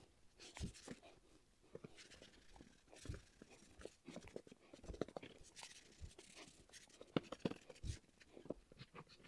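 Quiet scratchy rubbing of a rag wiping India ink onto bare wooden pieces, with scattered light knocks and taps as the pieces are handled.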